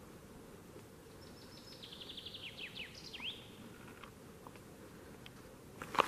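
A songbird sings one short song about a second in: a quick run of high notes falling in pitch, ending in a few sweeping notes. A faint low rumble runs underneath, with a sharp crunch at the very end.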